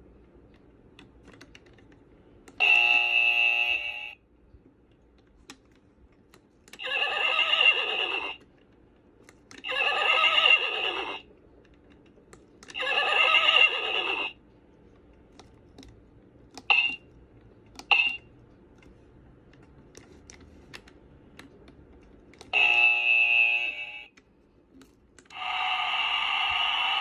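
Iler Brands Gameday battery-powered basketball scoreboard toy playing its built-in electronic sound effects as its buttons are pressed: five pitched sounds of one to two seconds each, two short blips, and light button clicks between them, then a longer steady sound that starts near the end.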